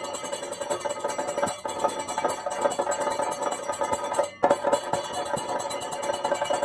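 Live Kathakali accompaniment music: many quick percussion strokes over a steady ringing tone. The sound briefly cuts out about four seconds in, then carries on.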